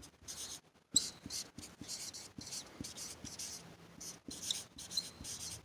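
Dry-erase marker being written across a whiteboard in a run of quick scraping strokes, with a few short squeaks of the felt tip.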